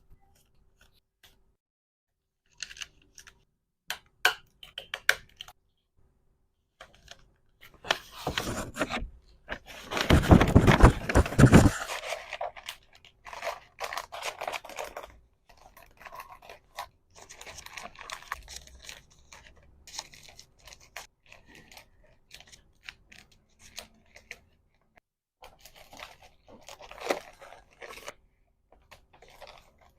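Hands packing small items into packaging: scattered taps, clicks and rustles of plastic and paper, with a loud stretch of crinkling and tearing about ten seconds in.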